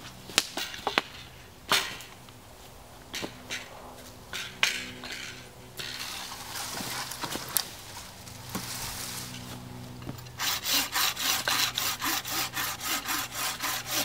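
Bucksaw cutting a thin wooden pole, with quick, even back-and-forth strokes, about three or four a second, starting about ten seconds in. Before that come scattered knocks and rustles as the pole is handled and set on the stump.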